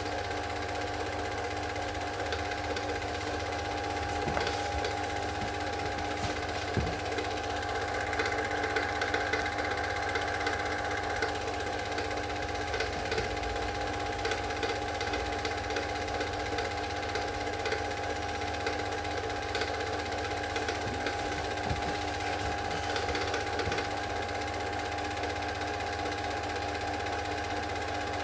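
Super 8 film projector running: a steady mechanical whirr with a constant hum and a few faint ticks.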